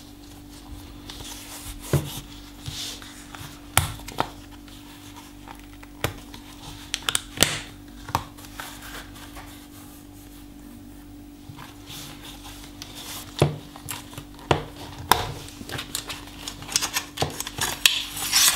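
Leather knife sheath being handled: leather rubbing, with a string of sharp clicks and knocks from its snap buttons and the knife against the stone counter. Near the end the clicks come faster as the steel blade is drawn out of the sheath.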